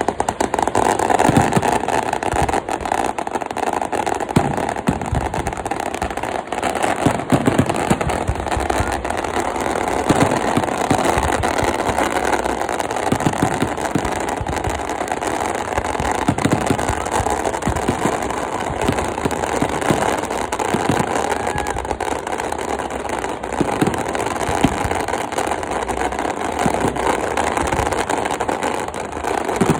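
A fireworks display going off without a break: dense, continuous crackling and rapid popping with no single standout bang.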